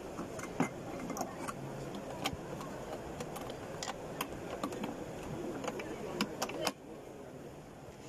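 Irregular light clicks and taps, about a dozen, over a steady low background murmur; the clicks and much of the murmur stop suddenly near the end.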